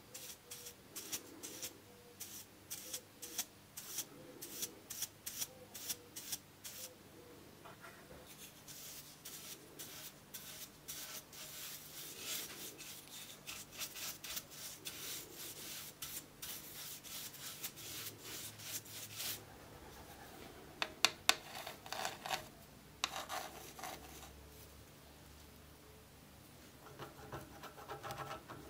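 Stiff-bristled paintbrush scrubbing liquid over the old wooden body of a hand plane. It makes scratchy back-and-forth strokes, about two a second at first, then quicker and denser, with a few louder strokes about two-thirds of the way through.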